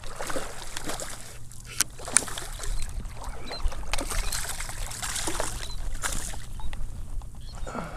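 Shallow salt water splashing and sloshing as a hooked speckled trout is brought in, with scattered short splashes over a low steady rumble.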